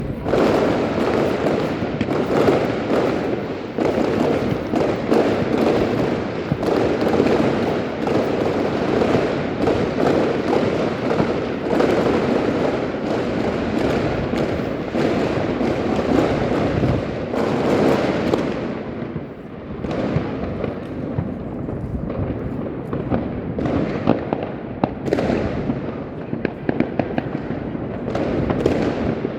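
Many fireworks going off at once: a dense, continuous barrage of bangs and crackling. It eases a little about two-thirds of the way through, where separate sharp bangs stand out.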